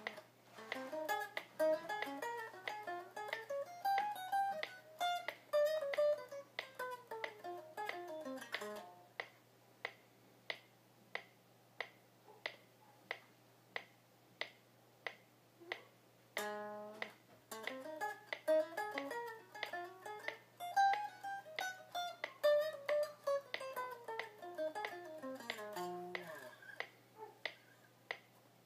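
Semi-hollow electric guitar playing a single-note jazz phrasing lick twice, each run of notes climbing and then falling over about eight to ten seconds, with a pause of several seconds between them. A steady click keeps time throughout, about one and a half clicks a second.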